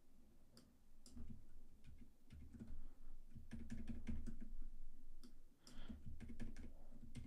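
Computer keyboard and mouse clicking: irregular clicks and taps, often several in quick succession, as points are nudged and dragged in font-editing software.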